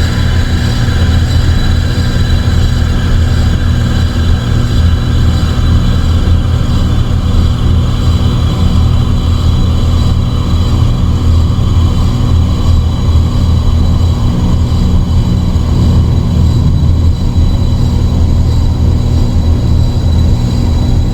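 Loud dark ambient drone music: a dense low droning hum with steady high tones above it, and a rushing band of noise that slowly falls in pitch.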